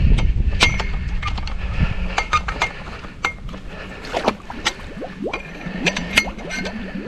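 Metal dock parts clinking and knocking as the dock is taken apart and handled: many sharp, ringing clinks at uneven intervals, with water splashing and dripping. A low rumble in the first two seconds fades out.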